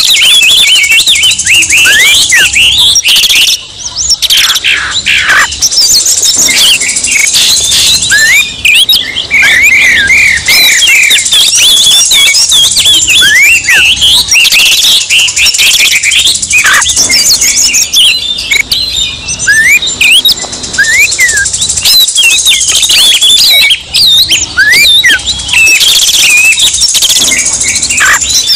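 Oriental magpie-robins singing in an agitated, aggressive manner, several songs overlapping into a dense, continuous stream of quick whistles, slurred glides and chirps. This is the excited 'emosi' song used as a lure to provoke a caged magpie-robin into singing.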